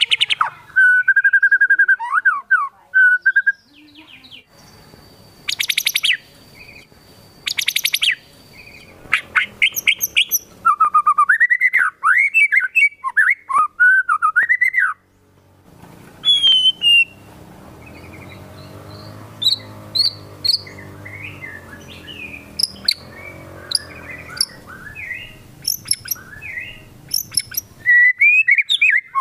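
Caged white-rumped shama singing a varied song of loud whistled phrases and sharp chirps, with two rapid rattling bursts a few seconds in and a brief pause about halfway through.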